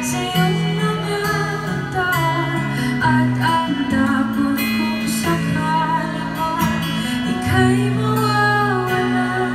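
Live acoustic guitar music: a slow ballad accompaniment of strummed and picked chords over held bass notes.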